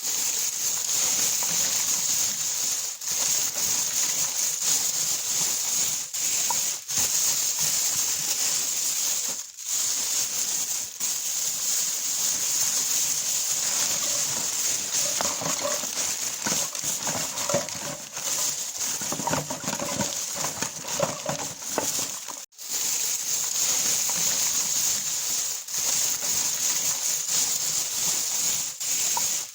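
Plastic bag crinkling and rustling as it is handled and opened, in long unbroken stretches with a few brief pauses, and some faint low pitched sounds mixed in near the middle.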